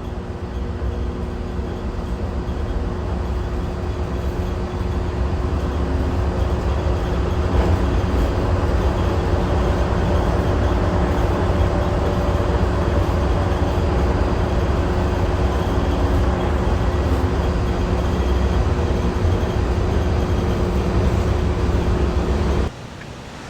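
Walt Disney World monorail train running, heard from inside the car: a steady low rumble with a faint steady hum. It grows louder over the first several seconds and cuts off suddenly near the end.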